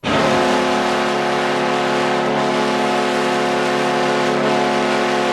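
Hockey arena goal horn blowing one long, steady multi-tone chord, starting abruptly: the signal that a goal has been scored.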